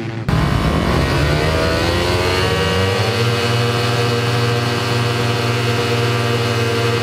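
Several Yamaha motocross bikes revving at the starting gate: the engine pitch climbs over the first couple of seconds, then is held at steady high revs while waiting for the gate to drop.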